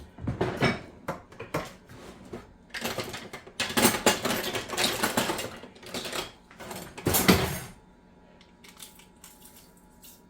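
Rattling and clinking of a spice jar and measuring spoon as whole pickling spice is spooned into the brine, in irregular bursts, with the loudest clatter about seven seconds in.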